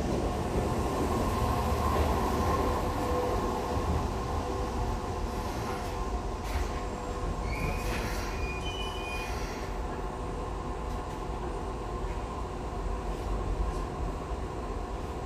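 Keisei 3500-series commuter train running, heard from inside the car: a steady rumble of wheels on rail with a humming tone from the drive. About halfway through come a few short, high wheel squeals.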